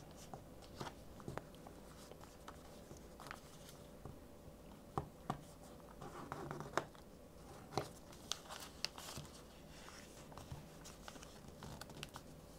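A sheet of paper being folded and creased by hand: faint rustling and crinkling with scattered light taps and scrapes, the sharpest taps coming about five to eight seconds in.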